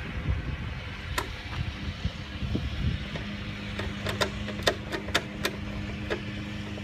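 Screws being driven back into a Chevrolet Trailblazer's tail light housing: a sharp click about a second in, then a quick run of sharp clicks in the second half.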